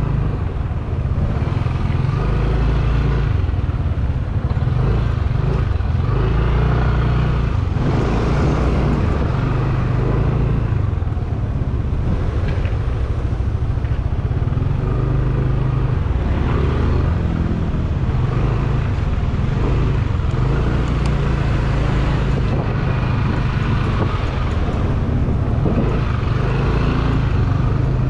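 A motorcycle riding at road speed in traffic: the engine runs steadily, its note shifting now and then, under continuous road noise.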